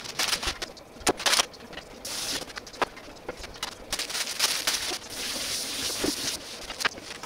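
Kitchen work sounds: scattered clicks and knocks of utensils and dishes, with several short stretches of hissing noise.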